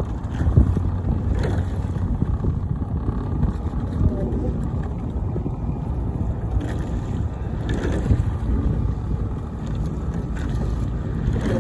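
Wind buffeting the microphone over open water, a steady low rumble, with a low hum coming and going and a few faint knocks.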